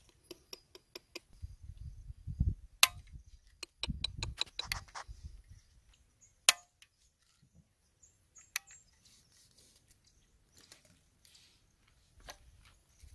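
A run of sharp metallic clicks and clinks with bouts of low rumbling handling noise between them, the sharpest click about three seconds in: a home-built single-shot break-action 12-gauge shotgun being handled just after firing.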